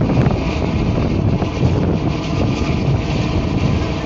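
Wind rushing over the phone's microphone on the open deck of a moving tour boat, over the steady running of the boat's engine.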